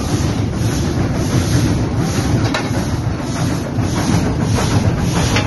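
Steady low rumble in a steam locomotive's cab, the fire burning through the open firebox door, with a faint click about two and a half seconds in and another near the end.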